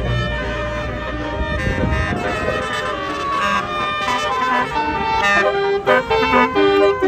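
A bus's Basuri telolet horn playing a tune: a run of horn notes stepping up and down in pitch. A low engine rumble dies away about two seconds in.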